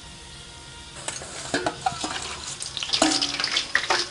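Dried pork-skin pieces frying in a wok of hot oil: sizzling that turns to dense crackling about a second in and grows busier. A ladle stirs the pieces in the wok.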